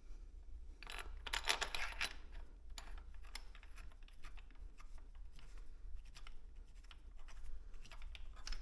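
Small metal parts clicking and rattling as bolts and slider brackets are handled and fitted, with a quick burst of clinks about a second in and scattered single clicks after, over a low steady hum.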